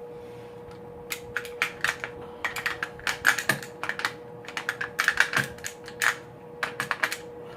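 Rapid, irregular metallic clicks and clacks in bursts as a distributor is worked and turned into the engine block to seat on the oil pump drive, over a faint steady hum.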